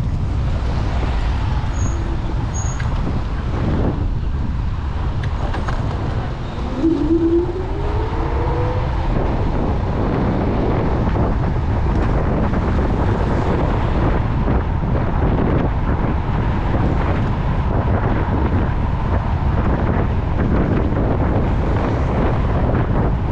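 Steady wind and road rumble from riding a Segway GT2 electric scooter, with a short rising whine about seven seconds in.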